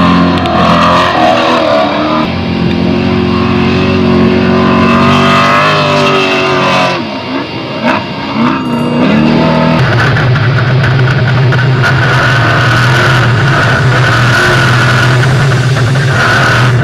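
Off-road race vehicle's engine running hard under load, its pitch rising and falling; about seven seconds in it eases off briefly, then holds a steady high pitch.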